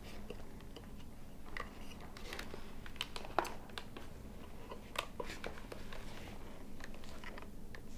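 Hands handling a motorcycle helmet: scattered small clicks, taps and rustles of the plastic shell, mount and fabric liner, with a sharper click about three and a half seconds in and another about five seconds in.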